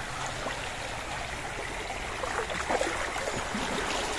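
Shallow, clear river water flowing and trickling steadily over stones, with a few brief louder splashy bits a little past halfway.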